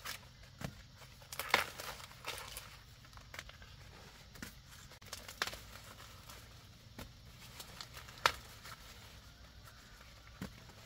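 Irregular rustling and crackling with scattered sharp snaps, the loudest about a second and a half in and again about eight seconds in.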